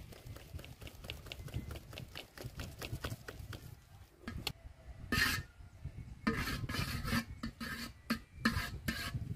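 A run of quick clicks, then several louder rasping, scraping strokes in the second half.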